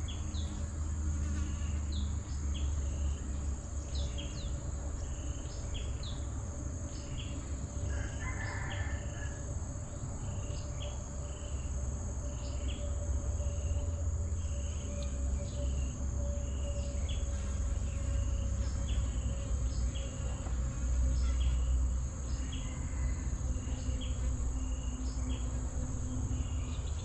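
Insects calling: a steady high-pitched drone with short chirps repeating a little more than once a second, over a steady low rumble.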